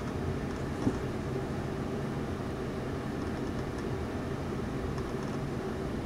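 Steady low hum with hiss throughout, from background machinery or a fan, with a faint click about a second in.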